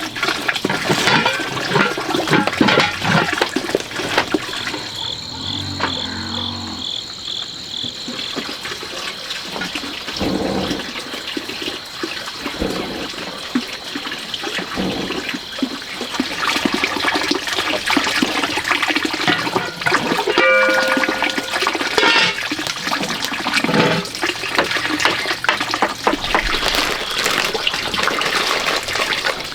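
Water splashing and sloshing continuously.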